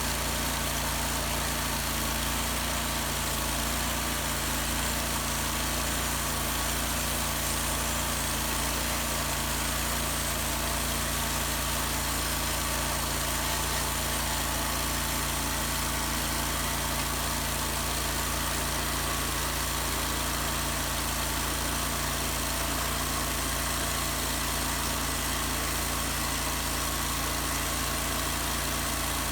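An engine running steadily at one speed, holding an even pitch and level throughout.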